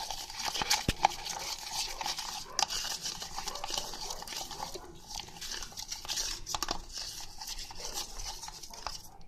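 Slime being stirred in a cup with a utensil: steady scraping with scattered light clicks of the utensil against the cup.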